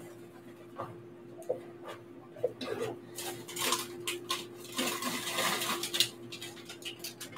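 Kitchen handling sounds: scattered clinks and knocks of utensils and dishes on a wooden work surface while pie dough is worked by hand, with a busier rustling stretch about halfway through. A faint steady hum sits underneath.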